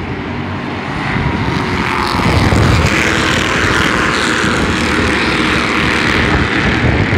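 A pack of Bandolero race cars' small engines buzzing past under green-flag acceleration. The sound swells about a second in, and the engine notes rise and fall in pitch as the cars go by.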